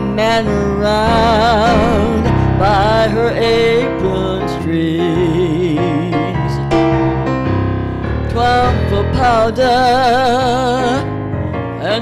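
A woman sings long held notes with a wide vibrato, accompanied by an electric keyboard.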